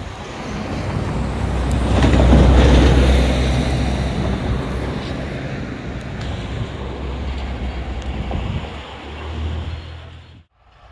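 The eight-cylinder diesel engine of a PKP SM42 shunting locomotive running during shunting moves: a steady low hum that swells to its loudest about two seconds in and then eases. The sound cuts off abruptly near the end.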